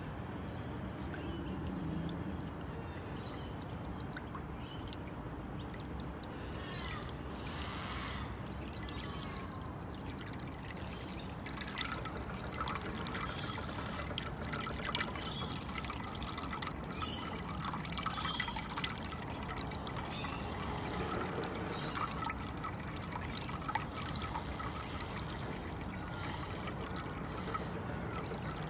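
Thin stream of water pouring steadily from a plastic container into a shallow glazed ceramic dish of water, trickling and splashing, with a few brief sharper ticks along the way.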